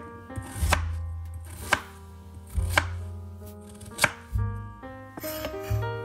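A chef's knife chops peeled raw potato on a wooden cutting board, the blade knocking sharply against the board about once a second, over background music.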